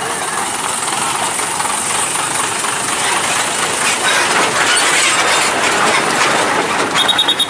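A heavy Mitsubishi truck rolls slowly over a railway level crossing amid traffic, heard as a steady loud rushing vehicle noise. Near the end a rapid, high-pitched beeping starts.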